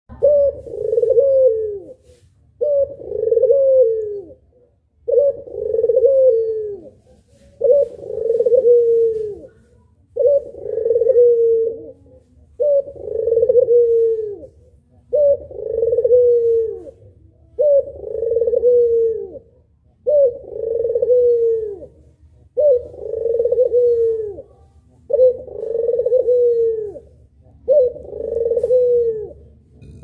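Puter pelung, a domestic ringneck dove breed, cooing over and over: long coos of about two seconds each, one every two and a half seconds, each ending in a falling note.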